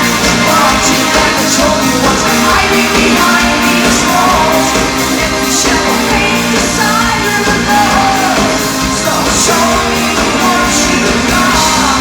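Live rock band playing loudly: drums with cymbal hits every half second or so, electric guitar, and singing, heard through a crowd recording.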